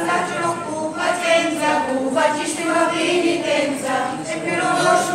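A crowd of processing faithful singing a devotional hymn together in mixed men's and women's voices, in slow held notes that move from pitch to pitch.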